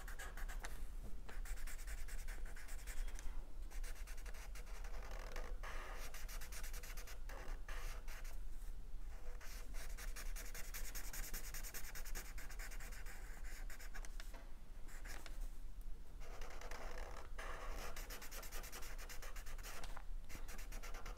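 Felt-tip Sharpie marker scratching across paper in quick strokes while filling in a solid black area, with a few short pauses.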